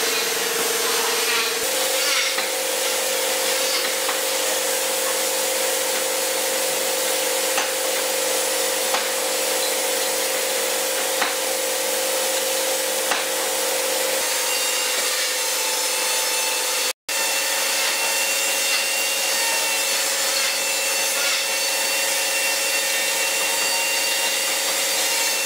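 Compressed-air spray gun hissing steadily as it sprays a coat of finish, with a steady hum underneath that shifts slightly in pitch a couple of times. The sound drops out for an instant about 17 seconds in.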